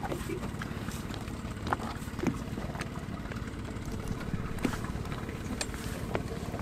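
A boat engine idling steadily with a fast, even low pulse, and a few sharp knocks and clicks from people and gear moving about the boats.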